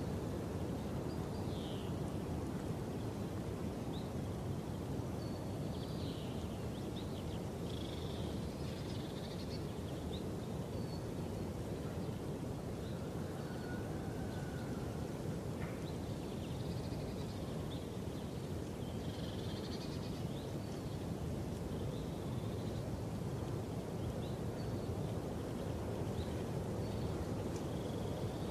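Outdoor background: a steady low rumble with small birds chirping now and then in short, high calls.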